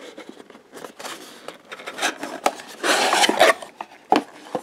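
Cardboard product boxes being handled: light taps, knocks and slides of the paper packaging, with a louder rustling scrape about three seconds in.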